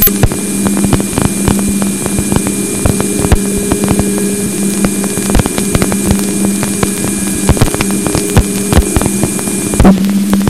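Raw Voyager 2 plasma wave instrument audio: a steady hiss carrying a constant 2.4 kHz tone from the spacecraft power supply, with irregular thumps and clicks from the particle instruments operating on the spacecraft. A low steady hum runs underneath.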